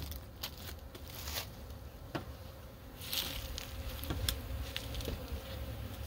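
Honey bees buzzing around their hive, a faint steady hum, with a few light clicks and knocks scattered through it.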